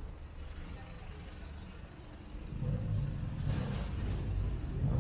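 Street traffic: a motor vehicle's engine, growing louder a little past halfway, with a brief hiss near the end.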